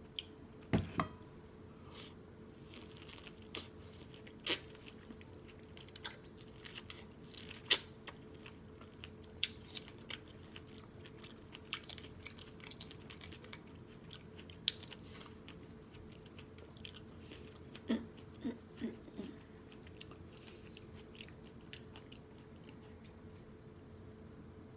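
Close-up wet chewing and lip-smacking of strawberries with yogurt, irregular sharp mouth clicks and squelches, a few louder bites among them.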